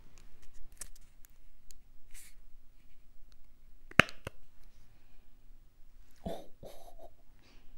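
Light clicking and rustling of plastic as a wax melt's packaging is handled, with two sharp clicks about four seconds in, and short sniffs as the melt is smelled.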